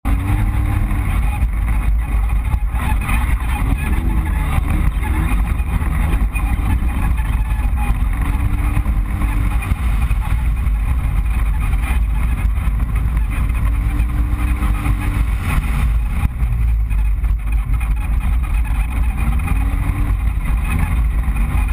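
Polaris RZR-S side-by-side running with a steady low rumble, over which a squeak rises and falls in pitch, coming back every few seconds: the machine squeaking like a pig.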